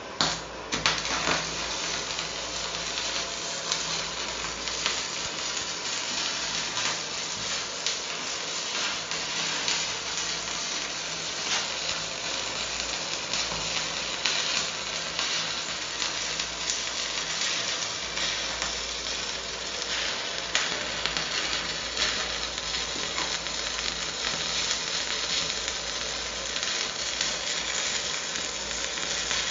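Stick (MMA) welding arc from a Retop MMA-200 inverter welder, crackling steadily with frequent sharp pops as the electrode burns.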